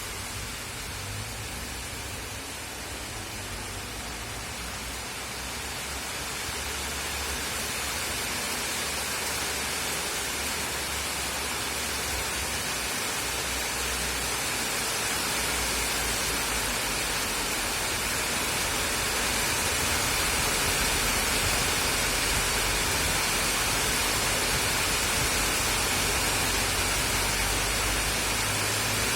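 Rain falling steadily, an even hiss that grows louder through the first twenty seconds or so as the shower gets heavier, then holds.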